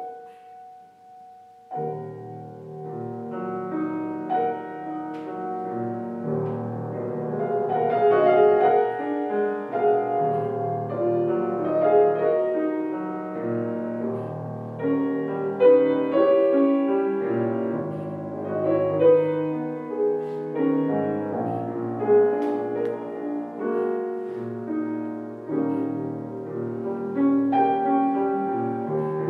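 Solo grand piano: a held chord dies away, then about two seconds in a busy classical passage of many quick notes begins and grows louder.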